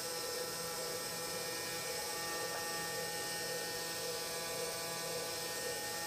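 Tongtai GT-630 five-axis machining centre's high-speed spindle milling a metal part with a tapered end mill: a steady whine of several held tones over a high hiss.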